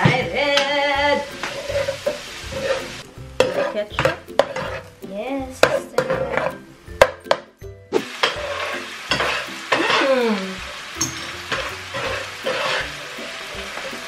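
Stainless steel ladles and spatulas scraping and clinking against frying pans as chicken and hot dog in ketchup are stirred, with food sizzling in hot oil underneath.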